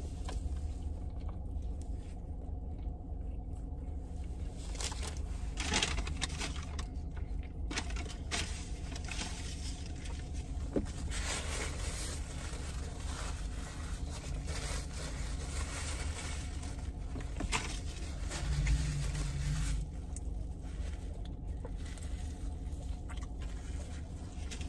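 Paper napkin and burger wrapper being handled: irregular crinkling and rustling in short bursts, thickest a few seconds in and again midway, over a steady low rumble inside a car.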